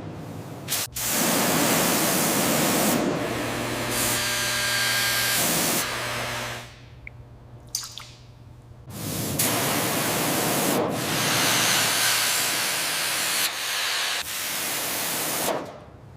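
Handheld power tool abrading the rusted metal bowl, a hissing grinding noise in two long runs with a quieter pause in the middle.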